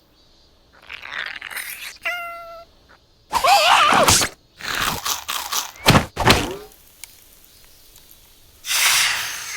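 Cartoon slapstick sound effects with a character's squealing, wordless vocalizing. A short rustle and a brief pitched squeak come first. Then a loud high squeal is followed by several sharp thumps and knocks, and a hissing swell comes near the end.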